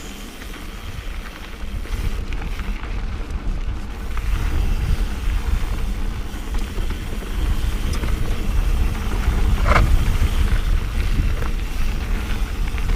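Mountain bike riding down a dirt trail: wind buffeting the camera microphone over the rumble of the tyres on dirt and rock, with a few short rattles and clicks from the bike. It gets louder about four seconds in and again about eight seconds in as the speed picks up.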